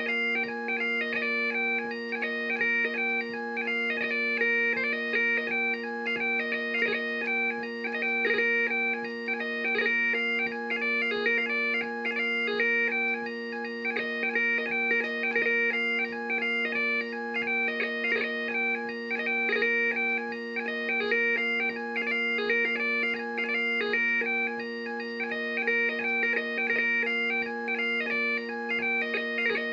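Bagpipe playing a lively hornpipe tune, a quick-moving chanter melody over steady, unbroken drones.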